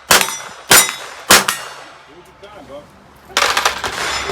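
Three quick .22 rimfire revolver shots from a Smith & Wesson 617, about two-thirds of a second apart. Each is answered by the ring of a struck steel plate.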